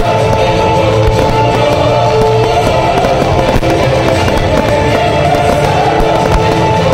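Music playing for a pyromusical fireworks show, with fireworks popping and crackling over it in many short, scattered reports.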